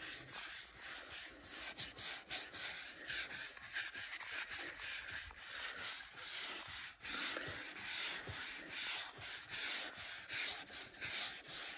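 Melamine foam sponge (magic eraser), wet with cleaner, scrubbing back and forth over a car's steering wheel rim: a run of quick, scratchy rubbing strokes.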